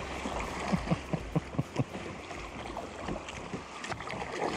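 River water rushing and lapping around a kayak, with wind on the microphone. About a second in, a quick run of six sharp knocks, about five a second.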